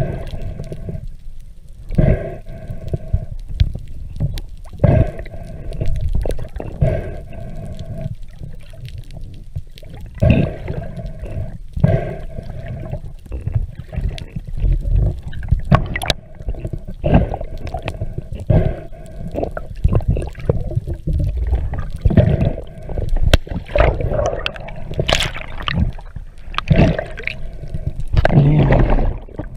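Muffled underwater sound through a camera housing: water rushing and sloshing over the case, with frequent sharp clicks and humming tones that come and go every few seconds.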